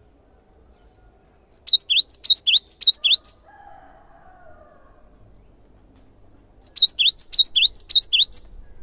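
Cinereous tit (gelatik batu) singing: two loud phrases a few seconds apart, each a quick run of paired whistled notes sliding down in pitch, in the tit's repeated 'tee-cher' style.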